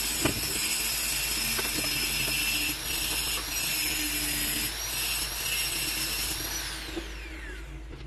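A power tool's motor whining steadily at a high pitch, then switched off a little past the six-second mark and winding down, its pitch falling away to the end. A few faint knocks sound along the way.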